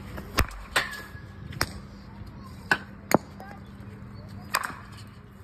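Six sharp knocks of plastic cricket balls being struck with a cricket bat and bouncing on the hard dirt pitch.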